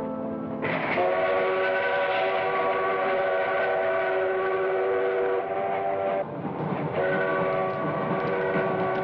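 Steam locomotive whistle sounding two long chord blasts: the first starts abruptly about a second in and breaks off about six seconds in, the second begins a second later. The train's running noise sounds underneath.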